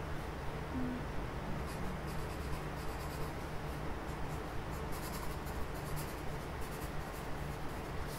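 Pencil writing on a graph-paper notebook: short scratchy strokes starting about two seconds in, over a steady low hum.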